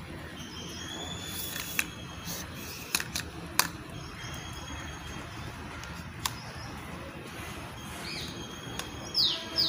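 Handling clicks from a plastic selfie-stick tripod as its clip-type stand is pushed and pried at, several sharp clicks a second or so apart. Faint birdsong, with a louder bird call of quick falling chirps near the end.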